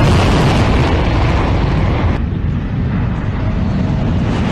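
Twin jet engines of a Sukhoi Su-30MKI fighter running at full power on takeoff, a loud, dense rushing roar. It dulls briefly in the middle and comes back near the end.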